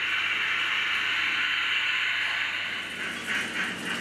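H0 model railway train running: a steady hiss, then from about three seconds in rhythmic pulses about three a second.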